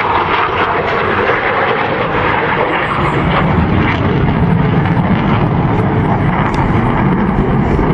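Loud, continuous jet noise from a Panavia Tornado's twin RB199 turbofan engines as it flies a display pass, with a deeper rumble building about three seconds in.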